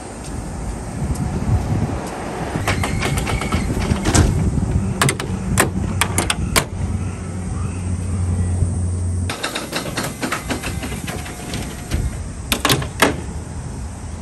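Hydraulics of a wing-body truck lowering its side wing: a steady low hum that cuts off suddenly about nine seconds in, with metal latches and panel fittings clicking and clanking as the side is closed up.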